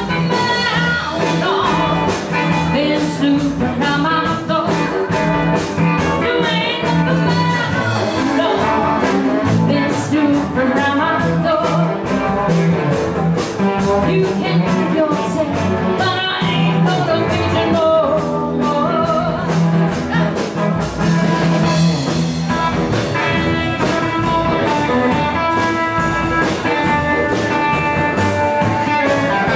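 A live rhythm-and-blues band playing a rock and roll number: electric and acoustic guitars, drum kit and saxophones, with a woman singing over a steady beat.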